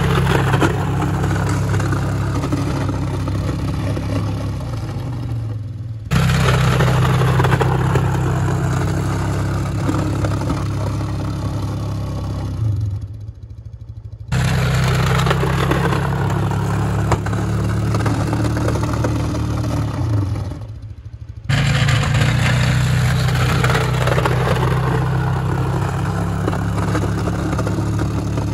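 1997 Polaris Sportsman 500's single-cylinder four-stroke engine running under load while the Warn ProVantage plow blade pushes wet, heavy snow, with a steady clattering scrape over the engine. The sound cuts abruptly three times, and the engine eases off briefly before two of the cuts.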